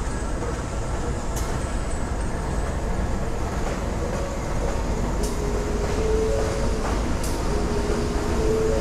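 Locomotive-hauled local commuter train pulling slowly into the station: a steady low diesel-and-wheel rumble with a few sharp clicks every couple of seconds. Faint whining tones join it in the second half.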